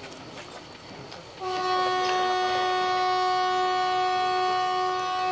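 Kangra Valley narrow-gauge train's horn sounding one long, steady blast at a single pitch, starting about a second and a half in.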